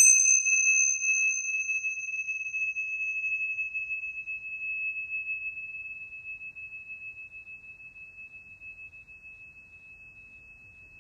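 A pair of tingsha cymbals struck together, then one long, clear high ring that slowly fades; a higher overtone dies away after about four seconds. The cymbals are rung to call listeners back at the close of a guided meditation.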